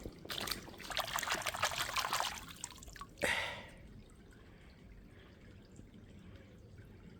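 Water trickling and splashing in a dense crackle for a couple of seconds, then a brief louder rush about three seconds in, settling to a faint steady flow.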